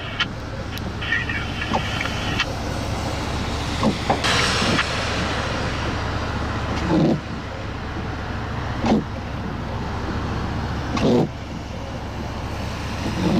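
Strong wind buffeting the microphone as a steady low rumble, with a brief stronger gust about four seconds in and a short thud roughly every two seconds.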